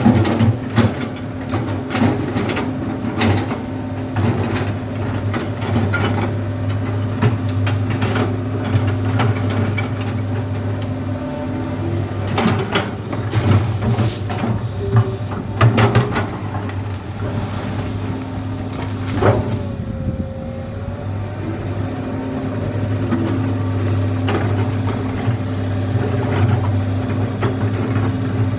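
Komatsu PC200 excavator's diesel engine running steadily under hydraulic load while digging gravel. Frequent clanks and knocks of stones against the steel bucket sound over it.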